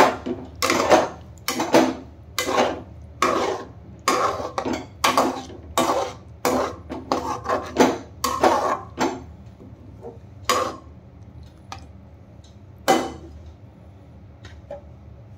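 Spatula scraping and knocking against a cooking pan while stirring a thick potato curry, about one to two strokes a second for the first nine seconds or so. Then come two lone knocks, and the sound dies down.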